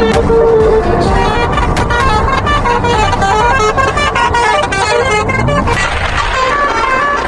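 Multi-tone 'telolet' bus horn playing a quick tune of short stepping notes. From about six seconds in, a rushing noise rises beneath the horn.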